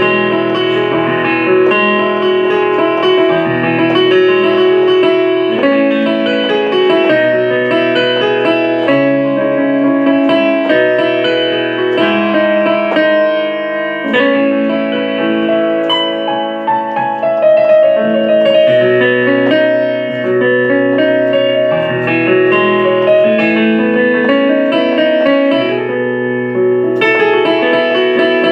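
Instrumental music: keyboard chords, electric-piano-like in tone, with some guitar, held notes changing about once a second.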